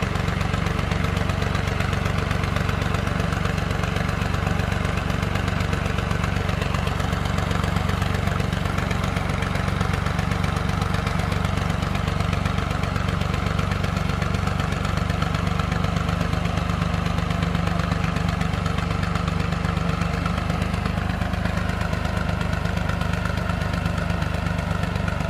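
Diesel farm tractor engine running steadily under load as the tractor works over a loose sand bank, a rear tyre churning up sand.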